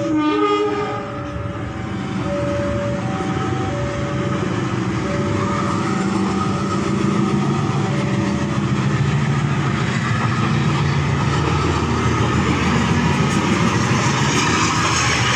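Diesel-electric locomotive approaching and passing with a local train: a short horn blast about half a second in, then the engine's low rumble building as it nears, and wheel and rail noise rising as it goes by near the end. A level-crossing warning bell rings in alternating two-note dings through the first half.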